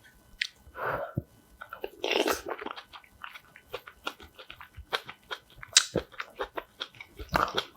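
A person chewing a mouthful of food close to the microphone: a dense run of short wet mouth clicks and crunches, with a few brief louder bursts.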